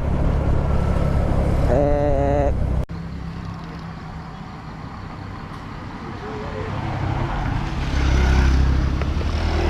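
A motorbike engine runs with wind noise on the riding microphone, and a short voice sounds about two seconds in. The sound drops off sharply about three seconds in, then slowly grows louder again.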